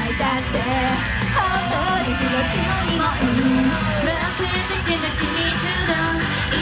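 Loud rock-style idol song played live: electric guitar and drums, with a voice singing over it.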